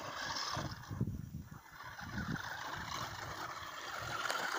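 Small electric RC buggy driving up a loose sand pile, its motor and tyres on sand heard faintly under an uneven low rumble.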